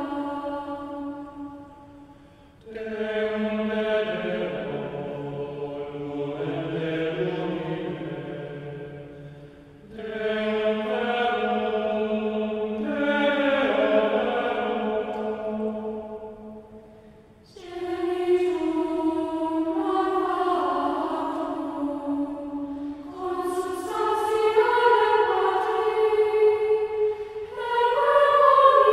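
A choir singing slow chant in several voices at once, with long held notes. The phrases are about seven to eight seconds long, each followed by a brief breath.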